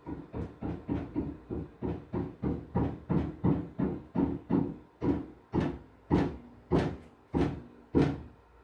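Hammering heard through a bathroom ceiling from the floor above: a quick, steady run of about three blows a second, then after about five seconds six slower, louder blows.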